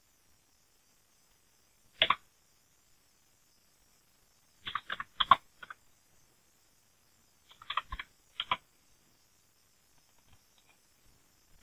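Computer keyboard keys being typed in short runs. A single press of the Enter key comes about two seconds in, a quick run of keystrokes follows around five seconds, and another run around eight seconds.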